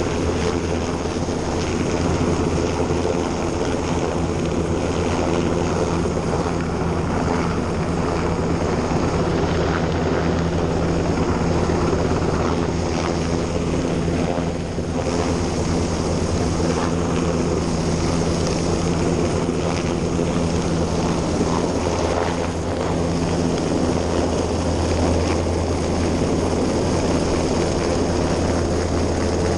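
Coastguard search-and-rescue helicopter hovering close overhead: a steady, loud drone of rotor and turbines, mixed with the lifeboat's engines and the rush of wind and spray as the boat runs at speed.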